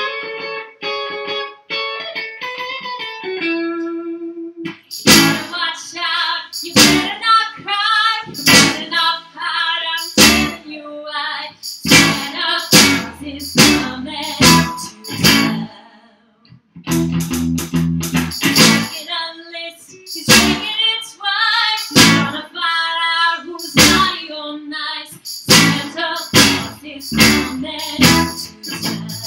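A small live band playing a Christmas pop song. Guitar picks a short intro, then an electronic drum kit, bass guitar and a woman's singing join in about five seconds in. The music breaks off briefly near the middle and then carries on.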